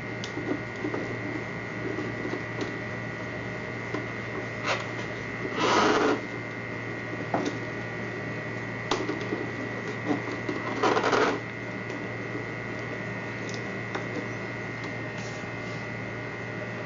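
Plastic clicks and two short scraping sounds of the hose and nozzle being fitted onto a portable garment steamer, over a steady electrical hum.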